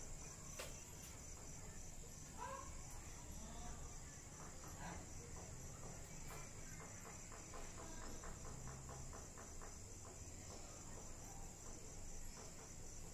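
Faint, steady, high-pitched pulsing insect trill, with a faint low background rumble. A short run of quick faint ticks comes about two-thirds of the way through.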